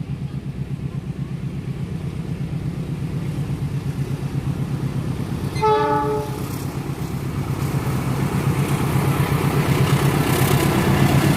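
CC 206 diesel-electric locomotive approaching, its engine running with a steady pulsing beat that grows louder, and one short horn toot about halfway through. Wheel and rail noise builds near the end as it draws close.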